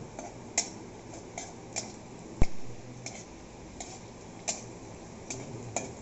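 Metal spatula knocking and scraping against a metal wok while stir-frying sliced onions and green chillies in oil: irregular sharp clicks about once a second, one louder knock about halfway through.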